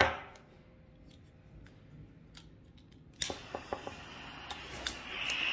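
A sharp tap at the start. A little over three seconds in, a butane pencil torch clicks several times and lights, and its flame hisses steadily, growing louder near the end.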